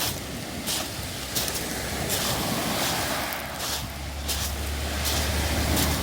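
Footsteps crunching on round, smooth beach pebbles at a steady walking pace, about three steps every two seconds, over the wash of surf. A low vehicle engine rumble comes in about two-thirds of the way through.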